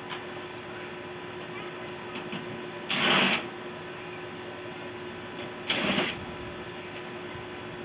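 Two short, loud, noisy bursts of work on a microwave being taken apart, about three seconds in and again near six seconds, each lasting about half a second, over a steady faint hum.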